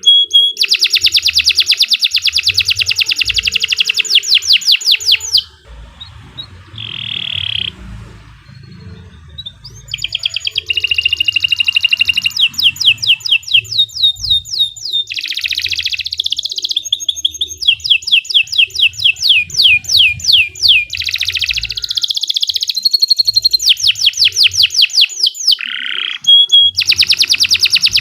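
Domestic canary singing long phrases of fast, rolling trills of rapidly repeated notes. About five seconds in the song breaks off for several seconds, then resumes with more trill runs.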